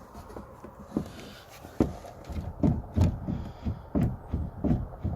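A series of dull thumps and knocks, sparse at first and coming two to three a second in the second half.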